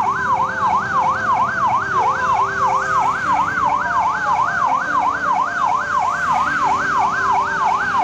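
Fire truck's electronic siren in a fast yelp, its pitch rising and falling about three times a second without a break.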